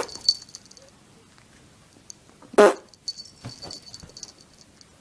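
A pet's short, sharp call, once about halfway through, with faint high chirping around it.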